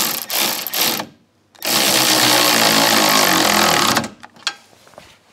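Power tool running flanged M8 nuts down onto the spring cup studs: a couple of short bursts in the first second, then one steady run of about two and a half seconds, with a sharp click near the end.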